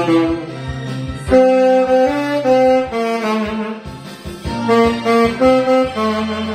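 Saxophone playing a song's vocal melody in held and stepping notes over a karaoke backing track with a steady bass-and-drum beat.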